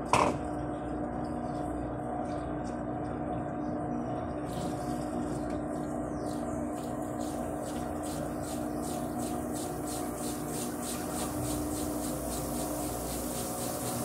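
Electrolux Turbo 15 kg top-load washing machine starting a spin: a sharp click at the very start, then a steady motor hum. From about four and a half seconds in, a rhythmic ticking comes faster and faster as the basket gathers speed.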